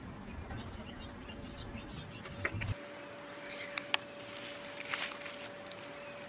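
Soft rustling and small crumbly clicks of gloved hands pressing compost and mulch around seedlings in a raised garden bed. Under it, a low rumble cuts off about three seconds in, leaving a faint steady hum.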